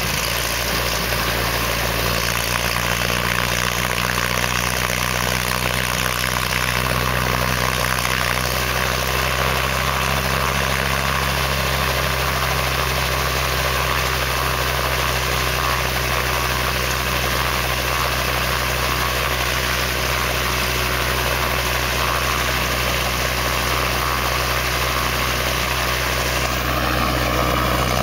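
Helicopter engine and rotor running steadily; the pitch begins to rise right at the end.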